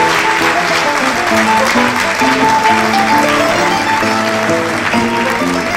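Audience applauding steadily over music with a melody of held notes.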